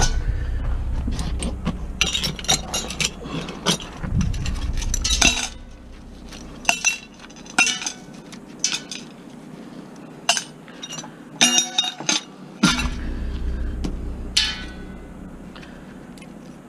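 Pieces of scrap metal clinking and clanking as they are handled: a string of irregular sharp metallic knocks, some ringing briefly, over a low rumble that drops away about five seconds in and returns later.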